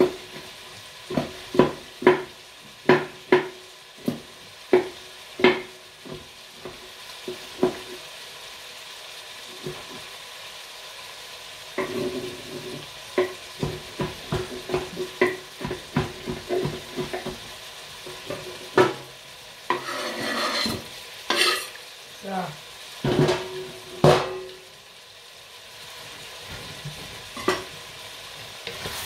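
Knife chopping jalapeño and piri-piri chilies on a cutting board: sharp taps, about two a second at first, a quicker run after about twelve seconds, and a few louder clattering bursts near twenty seconds. Under it runs a steady hiss from the simmering stew pot.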